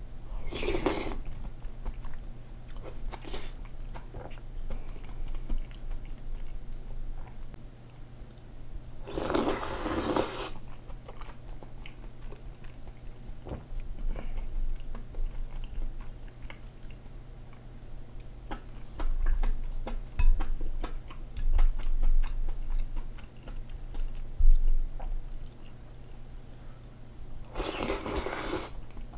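Slurping knife-cut noodles and thick perilla-seed soup three times, near the start, about ten seconds in and near the end, with wet chewing clicks in between. A few low thuds come in the second half.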